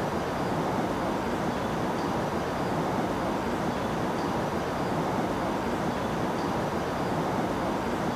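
Steady, dense rumbling noise at an even level, with a faint high tick about once a second.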